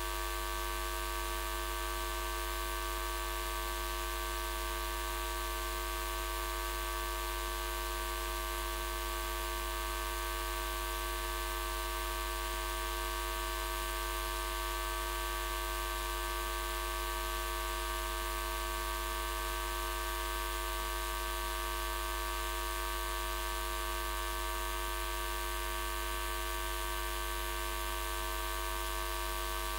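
Steady electrical hum and buzz made of several fixed tones over a faint hiss, unchanging in pitch and level.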